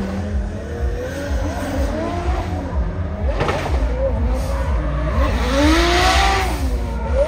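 Drift car's engine revving up and down, rising and falling in pitch, as it slides through the course, with tyre squeal swelling about six seconds in.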